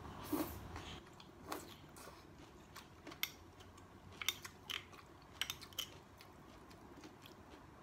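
Close-up eating sounds: chewing and lip-smacking on vegetables from a sour shrimp soup, with short sharp clicks scattered irregularly throughout.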